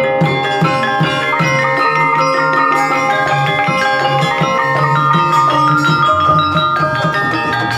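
Banyumasan gamelan music for an ebeg dance: mallet-struck keyed instruments ringing in a fast, busy pattern over low notes pulsing in a steady beat.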